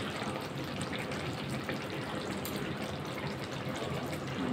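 Eggplant curry in mustard, poppy-seed and coconut gravy simmering in a pan, a steady bubbling, faintly crackling hiss.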